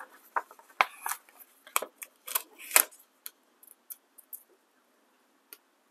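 Paper crackling and clicking as stickers are peeled up and repositioned on a planner page. The crackles come thick for about three seconds, then thin out to a few faint ticks.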